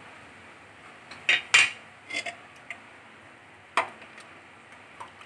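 Steel spoon knocking and scraping against the inside of a metal pressure cooker while mutton curry is stirred: several separate sharp clinks, the loudest pair about one and a half seconds in.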